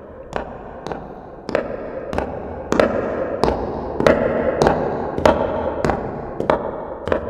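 Recorded footsteps played back through a convolution reverb set to a medium tunnel space: steady steps about every 0.6 s, each trailing a reverberant wash. They grow louder toward the middle and fade again as they pass from right to left.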